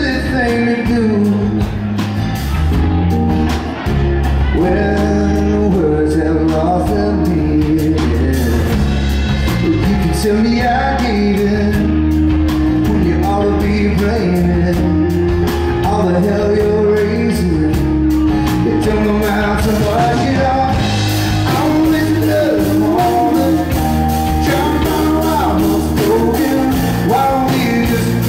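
Live rock band playing: a man singing over strummed acoustic guitar, electric guitar, bass guitar and drums. The high percussion gets brighter about two-thirds of the way in.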